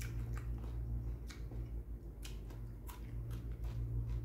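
A person chewing raw cucumber with her mouth closed, a run of irregular crisp crunches, over a steady low hum.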